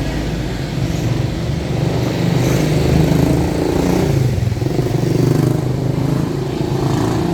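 Road traffic, with vehicle engines running and passing, their pitch rising and falling.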